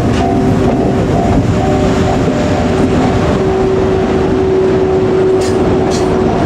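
JR Freight EF81 electric locomotive hauling a freight train past a level crossing, its wheels clattering over the rails with a steady rumble. The crossing's warning bell rings on and off at an even beat, a few strikes a second.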